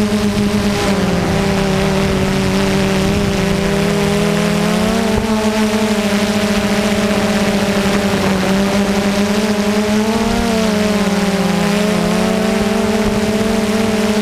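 Multirotor drone's motors and propellers whining steadily, heard close up from the camera carried on the drone. The pitch sags and comes back up twice as the motors adjust to hold position.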